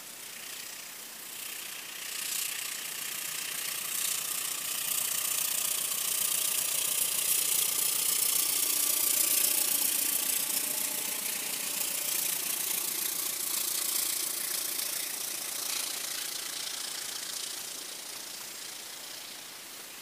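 A CC 203 diesel-electric locomotive hauling a passenger train passes by, its diesel engine running under load. The sound builds to a peak about halfway through, and the coaches' wheels clatter over the rails as they go by, fading near the end.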